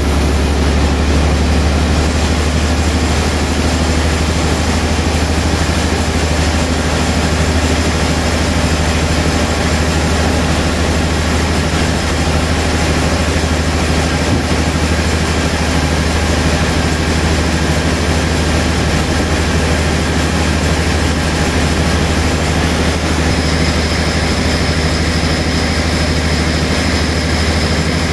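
Large band sawmill running steadily with a deep hum, its blade sawing a log into a wide slab. A faint high whine comes in near the end.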